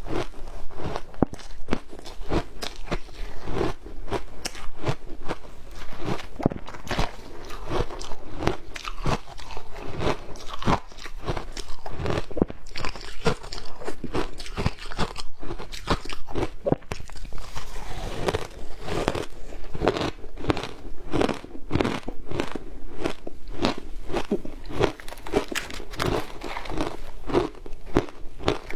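Close-up crunching and chewing of matcha shaved ice, with dense, irregular crunches several times a second.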